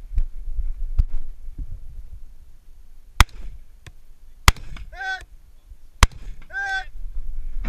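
Four rifle shots from an AR-style rifle fired at steel plates, a second or more apart. The last two are each followed about half a second later by a short, wavering ring.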